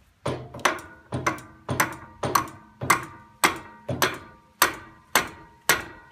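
A mallet strikes a socket wrench's handle about a dozen times, roughly two blows a second. Each blow gives a sharp knock with a short metallic ring as it tightens the bolt on the buggy's drive variator (clutch pulley).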